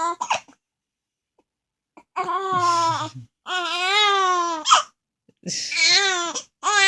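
A month-old baby crying: after a quiet stretch come four wailing cries of about a second each, with a brief sharp catch between two of them. The crying is set off by hiccups.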